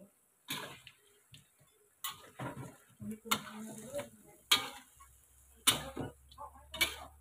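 Metal spatula scraping and clanking against a wok while stirring chicken pieces, in irregular strokes about once a second.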